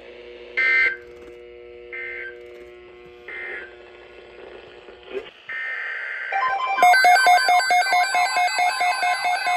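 Three short screeching bursts of EAS/SAME digital data (the end-of-message code) after a NOAA Weather Radio broadcast. About five seconds in comes a longer data burst, and then a loud electronic alert alarm starts beeping rapidly, about three times a second.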